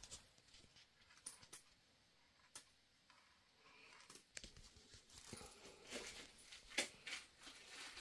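Near silence broken by faint rustling and a handful of light, scattered clicks.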